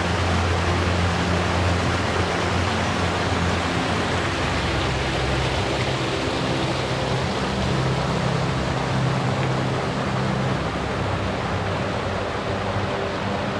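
Rushing water, a steady loud hiss of fast-flowing water.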